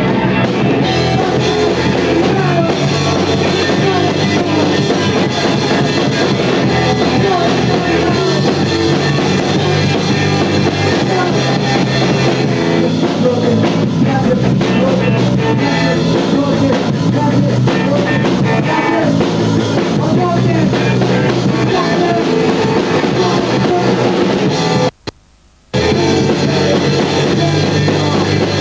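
Live rock band playing, with electric guitar and drum kit, loud and dense throughout. The sound cuts out completely for under a second about 25 s in, then returns.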